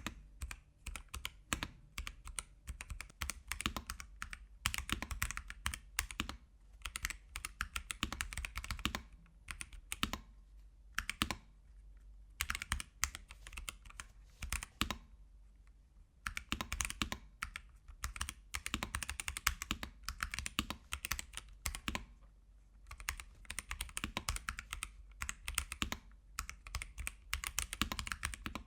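Typing on a mechanical keyboard fitted with AKKO tactile switches: quick runs of key clacks in bursts, with short pauses between them.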